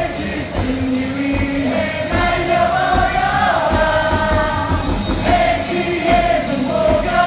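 Large baseball stadium crowd singing a cheer song in unison along with amplified music that carries a steady beat.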